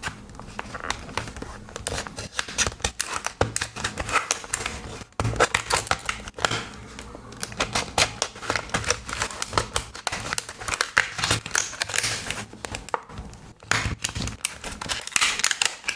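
Packaging being opened by hand: irregular crinkling, crackling and tearing, with short pauses around the middle and near the end.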